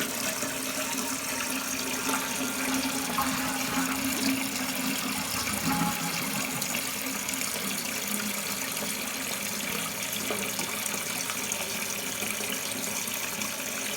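Toilet tank refilling through a newly installed fill valve after a flush: a steady hiss and rush of water.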